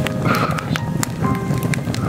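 Background music with held notes and sharp clicks running through it.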